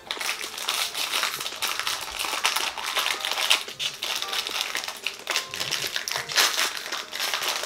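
Crinkly toy packaging being handled and squeezed: a continuous, dense crackling.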